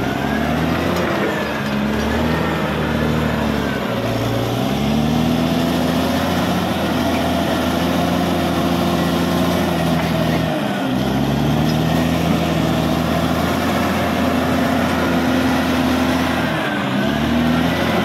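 Caterpillar D6R XL bulldozer's diesel engine running hard under load as the blade pushes soil and rock, its pitch sagging and recovering several times.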